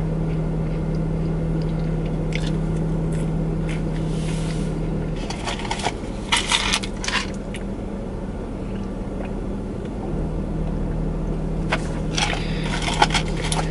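Paper fry carton rustling and crinkling in the hands, with chewing, over a steady low hum inside a car. A drink cup is handled near the end with more crinkly clicks.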